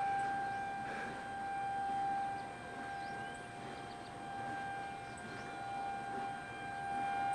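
Outdoor civil-defense tornado warning siren sounding one steady tone, slowly swelling and fading in loudness.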